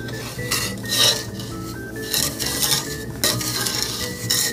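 Wooden spoon stirring a thin milk-and-sugar mixture for dulce de leche in a stainless steel skillet: a series of scraping strokes against the metal pan, with the liquid swishing.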